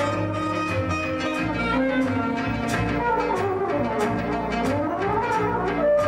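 Live jazz: a valved brass horn and a saxophone play melody lines together over bass and drums, with cymbal strokes keeping a steady beat.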